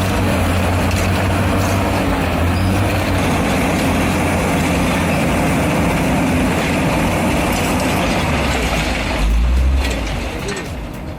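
Heavy diesel machinery running steadily with a low engine drone. About nine seconds in there is a heavier low rumble, then the sound drops away and cuts off abruptly.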